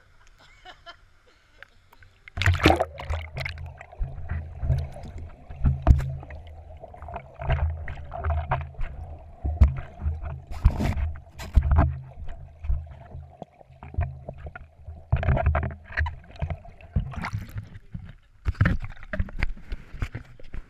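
Water heard through an action camera's waterproof housing as it dips under the surface: muffled rushing and sloshing with many thumps and knocks as the housing is moved and handled in the water. It starts quieter at the waterline and turns loud and muffled about two seconds in.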